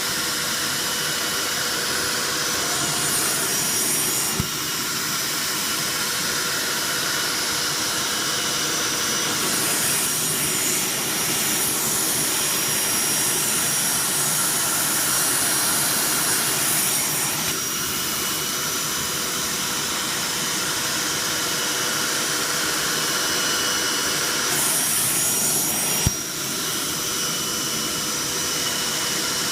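Hoover SteamVac SpinScrub carpet cleaner running steadily, its vacuum motor whining, with a high airflow hiss that swells for several seconds at a time and falls back as the hand upholstery tool works the fabric. Two sharp clicks, one a few seconds in and one near the end.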